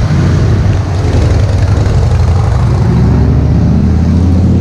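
Motor vehicle engine running loudly close by, steady, its pitch sagging slightly midway and rising again toward the end.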